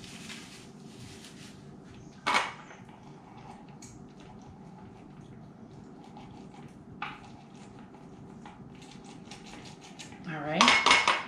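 A lemon half pressed and twisted on a small citrus juicer, with a sharp clink of dishware about two seconds in, light ticking later on, and a louder clatter of the juicer against its bowl near the end.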